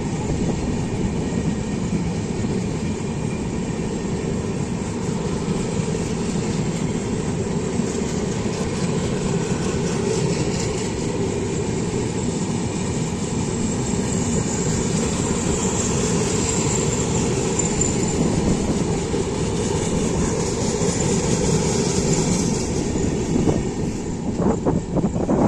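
Long passenger train of LHB coaches running past steadily, its wheels rolling on the rails. Near the end the steady sound breaks into uneven, choppier noise.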